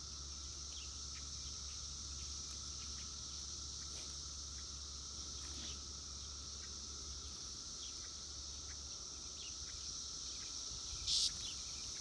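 Steady chorus of Brood X periodical cicadas (pharaoh cicadas), a continuous high-pitched whine with a fainter lower drone beneath it. A brief louder buzz comes near the end.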